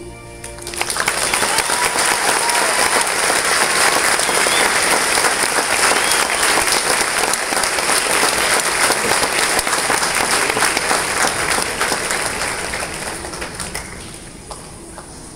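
Large audience applauding in a concert hall right after a choir's last chord dies away. The clapping swells about a second in, holds loud and dense, then thins out near the end.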